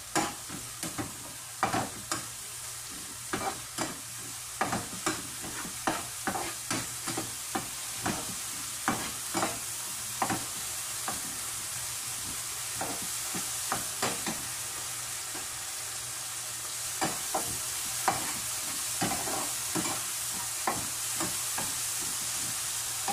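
Chopped spices and tomato sizzling in a nonstick frying pan over a gas flame, with a spatula scraping and tapping the pan about twice a second as it is stir-fried. The strokes thin out in the middle and pick up again near the end, while the sizzle grows louder in the second half.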